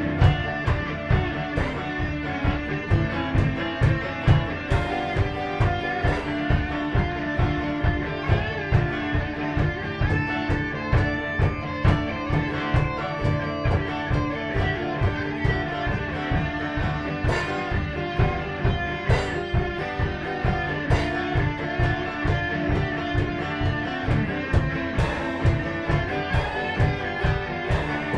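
Live rock instrumental: lead and rhythm electric guitars playing over a drum kit that keeps a steady beat.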